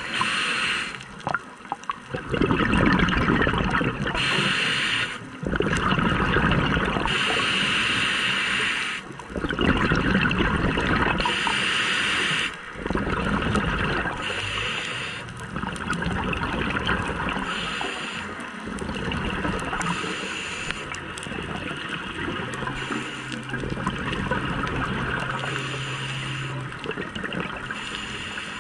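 Scuba diver breathing through a regulator underwater: a breath every three to four seconds, hissing on the inhale and gurgling with bubbles on the exhale. A low steady hum comes in for a few seconds near the end.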